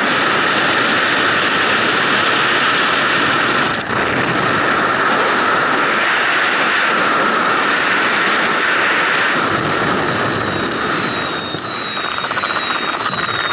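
Loud, steady rush of freefall wind over a skydiver's helmet-camera microphone. It eases slightly near the end, when a thin high whistle comes in.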